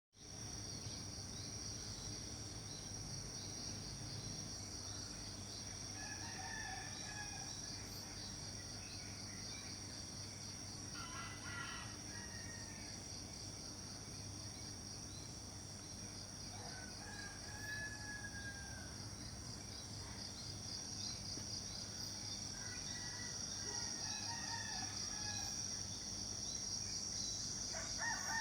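Roosters crowing several times, each crow lasting about a second, over a steady high-pitched insect chorus.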